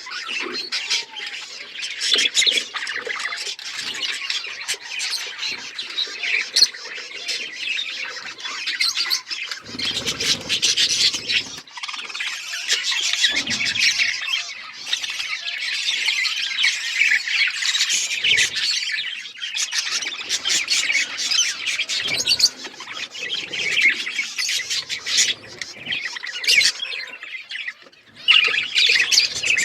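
A flock of budgerigars chirping and chattering continuously, with many overlapping high squawks and warbles.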